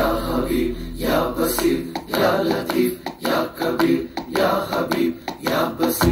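Malayalam film song playing from a vinyl LP on a turntable: singing over sharp percussive strokes about twice a second.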